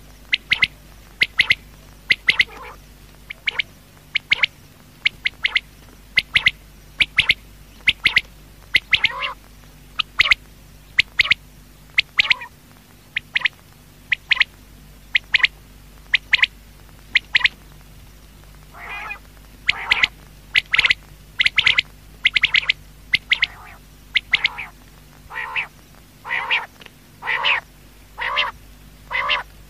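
Quail (batair) calling: short, sharp calls repeated about once or twice a second, some in quick pairs, over a steady low hum. About two-thirds of the way in the calls become fuller and reach lower in pitch.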